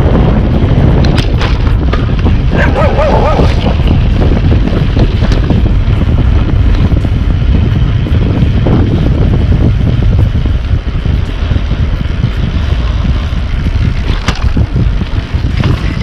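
Heavy wind buffeting and road rumble on a bicycle-mounted action camera's microphone while riding fast, easing a little after about ten seconds. A dog barks briefly about three seconds in.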